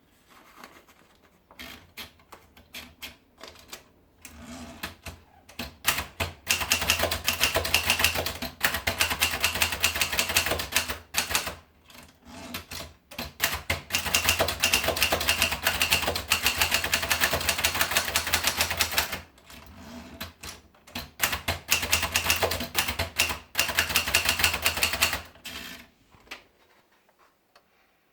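Underwood 223 typewriter being typed on: a few scattered keystrokes at first, then three long runs of fast, rapid-fire key strikes separated by brief pauses.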